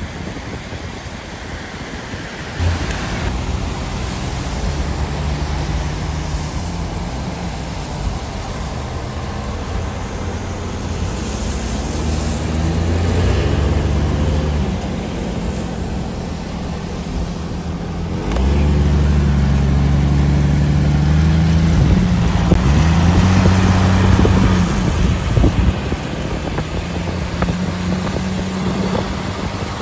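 A car engine running in traffic, its pitch stepping up and down and rising as it accelerates, louder from about two-thirds of the way through, over tyre noise on the wet road.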